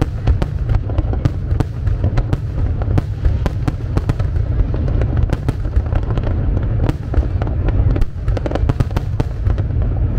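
Aerial fireworks display: a dense run of sharp cracks and bangs from bursting shells, several a second, over a constant low rumble.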